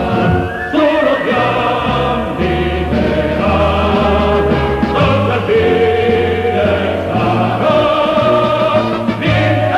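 Music: a choir singing held chords over a sustained bass, the notes changing about once a second.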